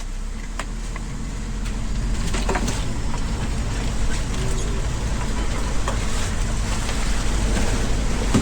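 A steady low engine rumble with scattered light clicks and knocks; it grows louder about two seconds in.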